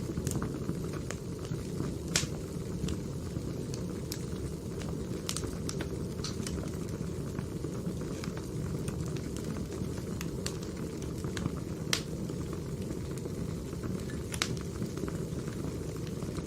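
Firewood burning: a steady low rush of flames with irregular sharp crackles and pops, two louder snaps about two seconds in and about twelve seconds in.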